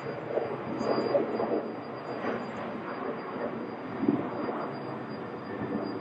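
Boeing 737 airliner's jet engines and rolling noise as it decelerates along the runway after landing: a steady rushing noise with a thin high whine over it, swelling louder about a second in and again about four seconds in.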